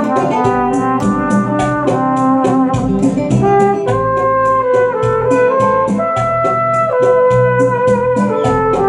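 Trumpet playing a slow melody of long held notes over a recorded backing track with a steady, even beat.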